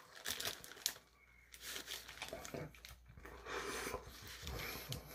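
Faint crinkling of the paper wrapper around a shawarma wrap, with small chewing and mouth sounds as it is eaten; a brief drop to near silence about a second in.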